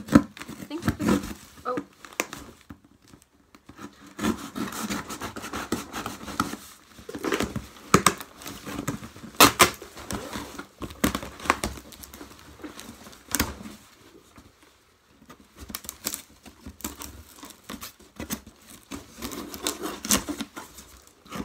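Cardboard box being opened by hand: packing tape torn and cut along the middle seam, with crinkling, rustling and irregular sharp knocks and crackles as the flaps are worked.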